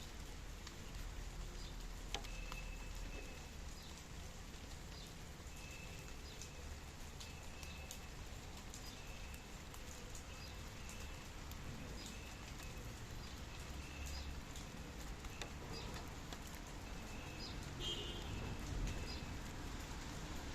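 Light rain with scattered drips ticking, and a bird repeating a short, faint high call about once a second, with a brighter chirp near the end.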